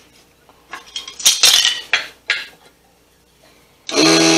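Several sharp metallic clinks and knocks as the mini lathe and its tools are handled. Then, near the end, the Sanjiang mini lathe's small motor switches on and runs with a loud, steady whine.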